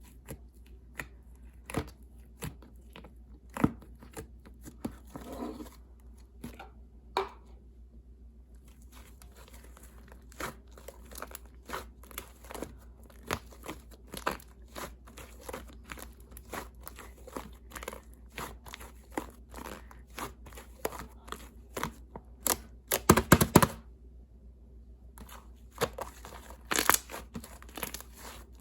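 Slime being squeezed and poked by hand, giving irregular sharp clicks and pops. A quick run of pops comes about two-thirds of the way through, and another near the end.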